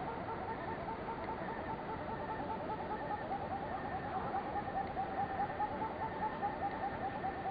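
Little grebe giving its long trill, a rapid run of repeated notes kept up without a break that sinks slightly in pitch near the end.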